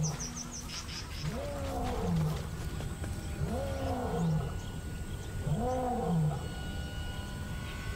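Male lion roaring: a run of long calls about two seconds apart, each rising and then falling in pitch. It is a pride male's territorial roar, a clear message of ownership.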